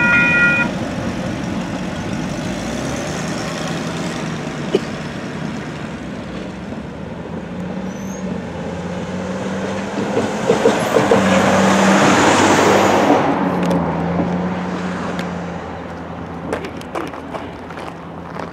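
A WCH Type 2 electronic crossing bell rings on for a moment, then stops less than a second in as the crossing clears. After that comes road traffic at the crossing, with an engine running steadily; a truck drives across the tracks about ten to thirteen seconds in, the loudest part. A few clicks follow near the end.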